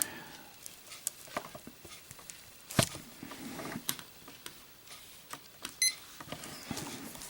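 Scattered light clicks and taps from a boxed Zippo lighter being handled, with one louder tap about three seconds in and a very short high chirp just before six seconds.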